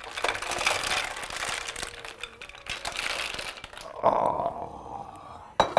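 Mussels in their shells tipped from a bowl into a stainless steel sauté pan of hot broth, the shells clattering against each other and the pan for about four seconds. A softer hiss follows, then a sharp knock near the end.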